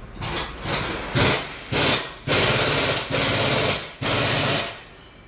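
A power tool run in about seven short bursts, each starting and stopping abruptly, the later ones longer and louder, with a fast rattling hiss.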